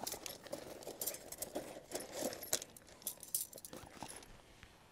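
Irregular light clicking and rattling, like small metal parts or tools being handled and knocked together, dying away near the end.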